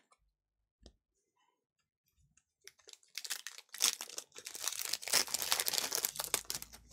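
Foil wrapper of a Panini Donruss basketball card pack being torn open and crinkled by hand: a dense run of crinkling starting about three seconds in and lasting about four seconds.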